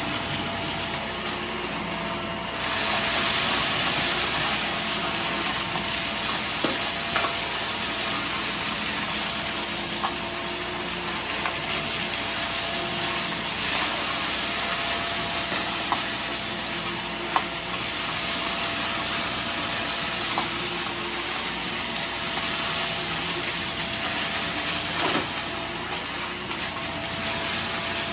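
Vacuum cleaner running steadily with a constant whine and hiss, sucking up scattered debris that ticks and clicks through it now and then; the suction gets louder about two and a half seconds in.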